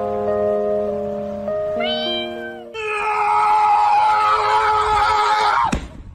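Background music with held notes, then a short rising animal cry about two seconds in, followed by a loud, drawn-out animal cry of about three seconds that ends in a sharp falling sweep.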